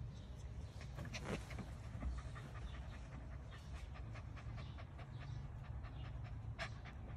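Miniature Schnauzer puppy panting close to the microphone, with many short mouth clicks and a louder click about a second in and another near the end.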